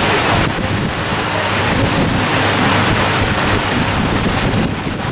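Wind buffeting the microphone, a steady rushing noise with low rumble.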